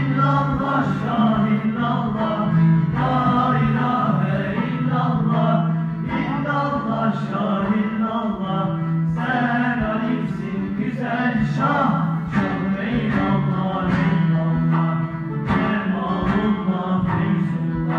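Voices singing an Alevi devotional song (deyiş) together over instrumental accompaniment with a steady low drone.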